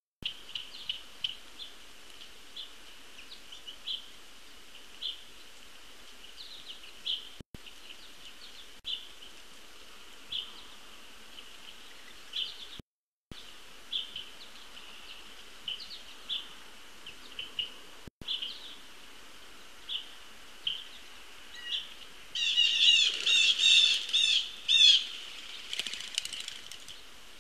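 Wild birds chirping, short notes every second or so over a steady high-pitched background chorus. About 22 seconds in comes a loud burst of rapid, repeated calls lasting about three seconds, which the uploader takes for a possible hawk.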